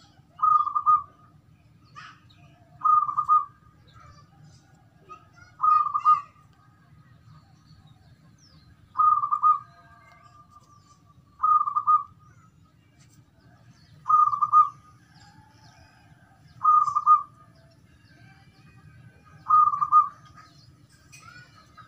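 Caged zebra dove (perkutut) cooing. Its short rolling coo comes eight times, evenly spaced about every two and a half to three seconds.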